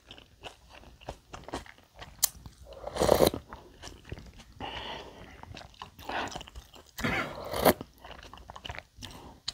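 A person eating ramen noodles in broth close to a clip-on microphone: chewing with several louder wet mouth noises, the loudest about seven seconds in.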